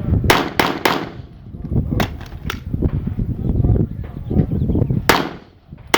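A string of pistol shots on a timed classifier stage: three fast shots about a quarter-second apart, two more about a second later, then two more near the end. A low rumble of wind or handling noise runs underneath.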